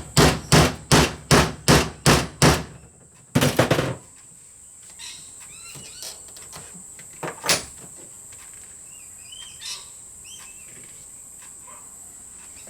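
A mallet repeatedly striking a leather prong punch, about two blows a second for the first two and a half seconds, then a quick flurry of taps, punching stitching holes in leather. After that a steady high-pitched insect trill continues with a few bird chirps.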